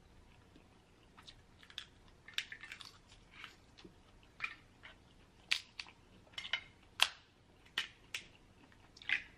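Crab shells cracking and snapping as they are broken open by hand to get at the meat: a string of sharp, irregular cracks, loudest about seven seconds in.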